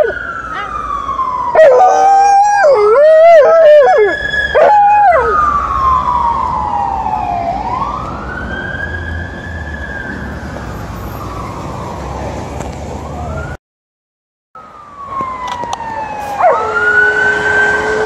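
An Alaskan Malamute howling along with a wailing emergency-vehicle siren. A wavering howl of a few seconds comes about two seconds in, then the siren rises and falls on its own. The sound cuts out for about a second, and a second howl begins near the end over the siren.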